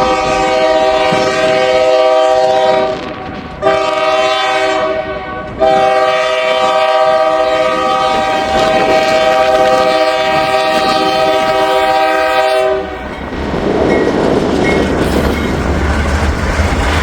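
Norfolk Southern helper locomotive's multi-chime air horn: a long blast, a short one, then a long held blast that stops about three-quarters through. After it, the locomotive's running and rail noise as a low rumble.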